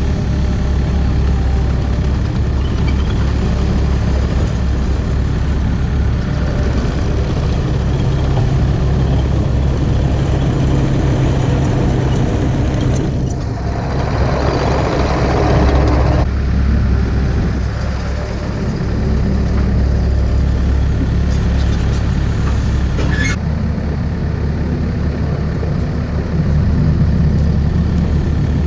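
Takeuchi excavator's diesel engine running steadily, with a louder stretch of hissing noise of about three seconds around the middle and a sharp click later on.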